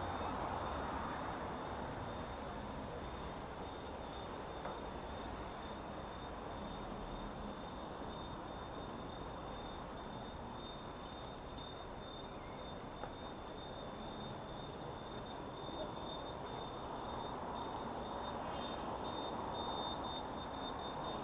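City street traffic: a steady wash of car engines and tyres on a busy road, with a faint high-pitched whine held throughout.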